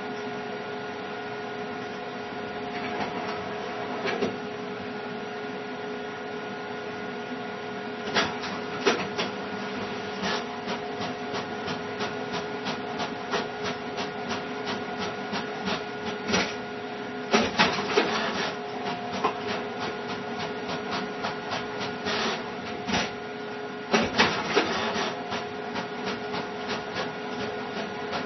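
A steady mechanical hum with several fixed tones. From about eight seconds in it is joined by rapid, irregular clicking and ticking.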